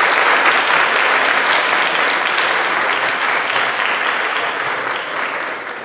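An audience applauding, many hands clapping at once, the clapping dying away near the end.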